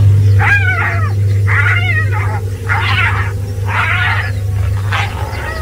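A spotted hyena squealing and crying in distress while lions attack it. It gives about one call a second, each call bending in pitch, over a steady low rumble.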